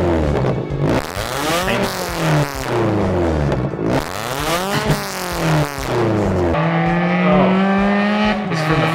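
Mazda MX-5 NC four-cylinder through a decat and titanium Tomei back box, revved repeatedly, each rev rising and falling in pitch about once a second. About two-thirds of the way in it changes to the car driving with the engine held at a steady pitch.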